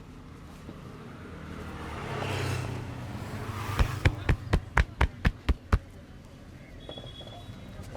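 A quick run of about eight sharp hand slaps, roughly four a second, from the barber's hands striking in rhythm during an Indian head massage. Just before it, a passing vehicle swells and fades.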